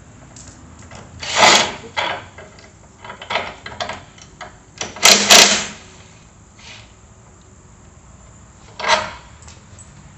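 Several separate clanks and knocks of a hand tool and metal snowblower parts being handled while bolts are undone; the loudest is a double clank about five seconds in.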